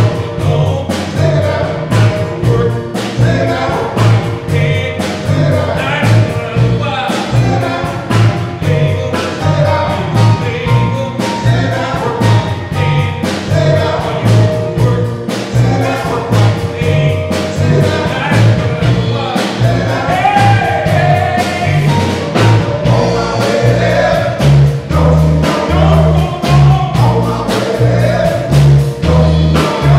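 Men's gospel vocal group singing together over a band with a steady beat and a bass line.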